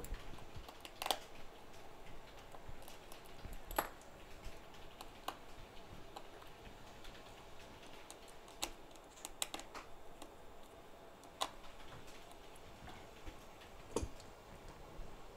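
Scattered small clicks and taps from hands and fine tools working inside an opened iPhone 6, a sharp click every second or few, at an uneven pace.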